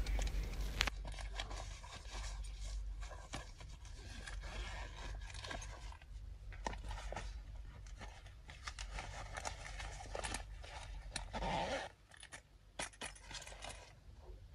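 Fabric rustling and scraping with small clicks as a small purse is pushed down into a black nylon shoulder bag and the bag's contents are handled.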